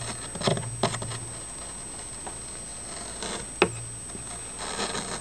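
Scattered light clicks and taps with short stretches of scraping as an electric soldering iron's tip works melted plastic into a crack in a motorcycle fairing. The loudest click comes a little past the middle.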